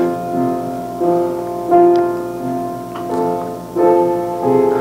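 Piano playing slow, soft chords, a new chord about every second, each held and ringing on.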